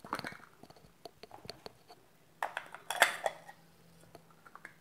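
Plastic lens rear cap and camera body cap being twisted off and set down on a table: a scatter of small clicks and taps, busiest and loudest about two and a half to three and a half seconds in.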